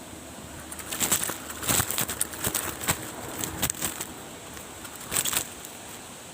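Irregular bursts of crackling and rustling, about a dozen between one and five and a half seconds in, over a faint steady high whine.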